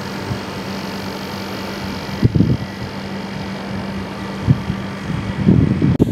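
Steady mechanical hum with a constant low drone, like a fan or air-conditioning unit running. Gusts of wind buffet the microphone a few times: about two seconds in, at four and a half seconds, and near the end.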